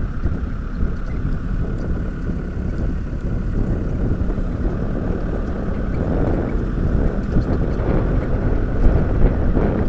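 Open-sided safari vehicle driving on a grass track: its engine runs under wind noise on the microphone, a steady low noise that grows a little louder over the second half.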